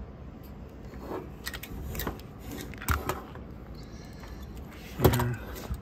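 Handling of a cassette deck's tape transport mechanism: a few scattered clicks and knocks over a low hum, the loudest about five seconds in.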